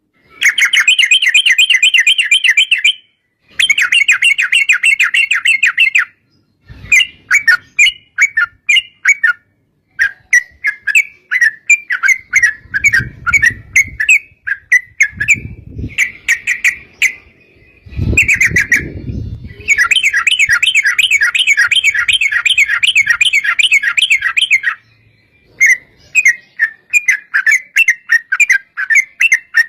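Yellow-vented bulbul (trucukan) singing a fast rattling chatter of rapidly repeated notes in long runs, the 'ropel panjang' song. The runs are cut off abruptly by short silences, and looser choppy phrases come in the middle. A few low muffled rumbles sound under the song midway.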